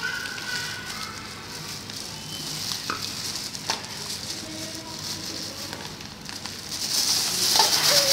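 A thin plastic carrier bag crinkling and rustling as a toddler's hands grab and pull at it, loudest near the end.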